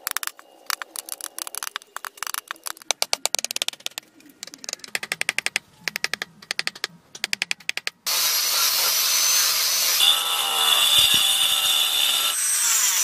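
Hand chisels cutting into a wooden block in quick, rapid strokes with shavings coming off. About eight seconds in, an angle grinder starts and runs steadily against a wooden board with a high whine.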